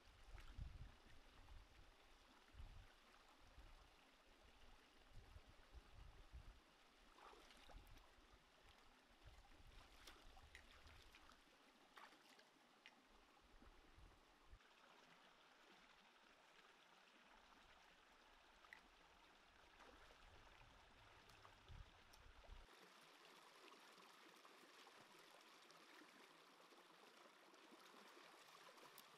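Faint sound of a shallow stream running over rocks, with some low rumbling and a few soft knocks in the first half.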